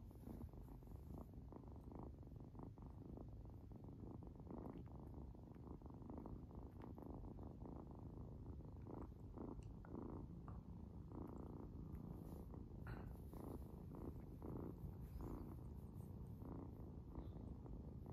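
Three-month-old orange tabby kitten purring steadily, close up.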